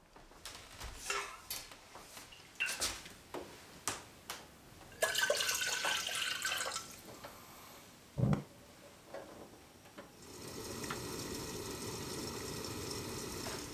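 Metal pots and a kettle clinking and knocking on a gas stove. About five seconds in, water is poured into the kettle for about two seconds, and there is a thump a little later. From about ten seconds in, the gas burner under the kettle hisses steadily.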